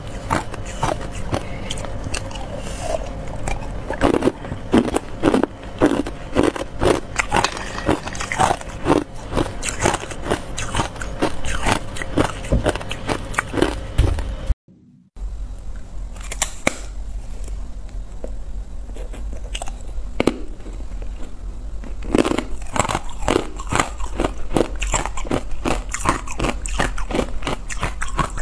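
Ice cubes bitten and chewed close to the microphone: a dense run of sharp cracks and crunches. The crunching breaks off for about half a second around the middle, then carries on.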